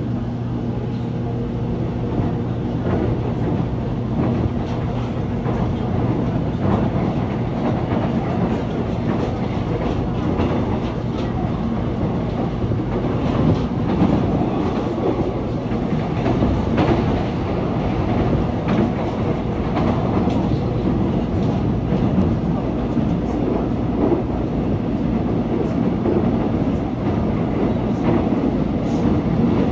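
Seoul Subway Line 1 electric express train running at speed, heard from on board: a steady rumble of wheels on rail with repeated clicks over the rail joints. A low steady hum sits under it in the first several seconds, then fades.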